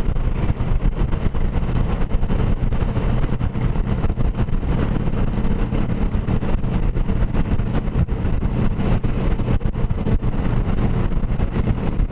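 Honda Gold Wing motorcycle cruising at steady highway speed, heard from the rider's helmet: a continuous engine hum under wind noise crackling on the microphone.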